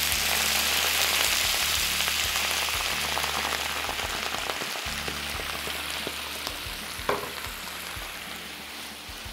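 Cider vinegar poured into a hot frying pan of browned onion slices, deglazing it: a strong sizzling hiss that fades slowly as the liquid settles. A short knock about seven seconds in.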